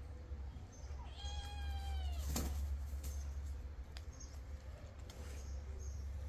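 A cat meows once about a second in, a drawn-out meow lasting about a second that drops slightly in pitch at its end. It is followed at once by a short, sharp knock.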